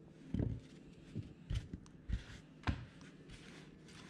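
A stack of trading cards handled and squared in the hands: about five soft, dull knocks and light rustles of the cards.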